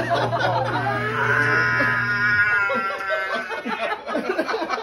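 A young child's excited, wordless squeal of delight, wavering in pitch, over a steady low hum that stops about halfway through; the squeal gives way to people laughing.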